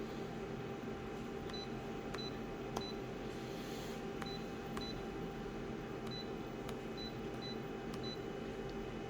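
Short high electronic beeps, each with a click, sounding about nine times at irregular intervals over a steady low electrical hum, like the feedback beeps of controls being pressed on a device.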